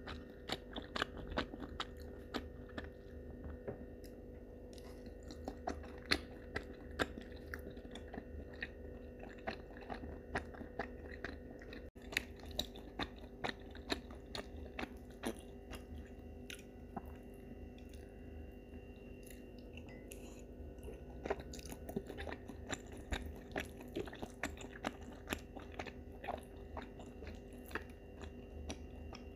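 A person chewing mouthfuls of spicy instant ramen noodles and chewy rice cakes, with many small wet mouth clicks in quick, uneven succession. A faint steady low hum runs underneath.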